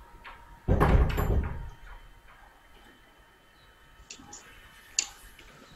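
A dull thump about a second in that dies away over about a second, then a few short faint clicks near the end.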